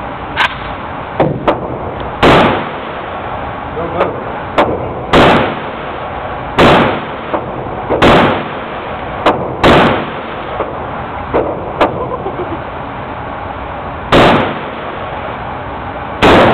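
WASR AK-pattern rifle fired in single aimed shots: seven loud shots, mostly one and a half to three seconds apart with a longer pause past the middle, each with a short ringing echo off the indoor range walls. Fainter sharp cracks fall between them.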